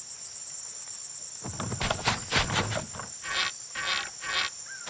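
Crickets chirping steadily as a summer-garden background. About a second and a half in come a few soft thumps, then three short rustles.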